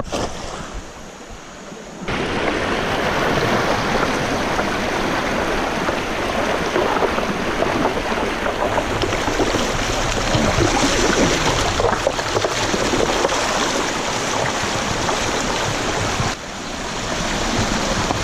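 Creek water rushing steadily. The rush starts suddenly about two seconds in and dips for a moment near the end.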